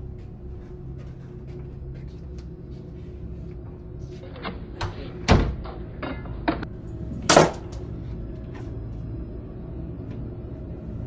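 Low, steady horror-film music drone with several sharp wooden knocks and clunks of doors being handled, the two loudest about five and seven seconds in.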